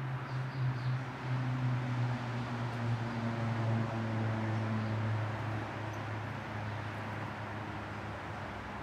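A steady low hum with an even hiss over it, like a fan or distant traffic running without a break.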